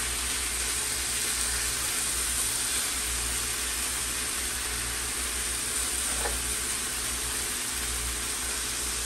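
Seasoned chicken breasts sizzling in oil on a stovetop grill pan: a steady frying hiss.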